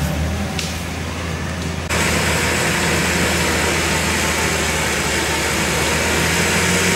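A 4x4 off-road SUV's engine running, with a steady low hum. About two seconds in, the sound cuts to a louder, steadier noise with a strong hiss above the engine hum.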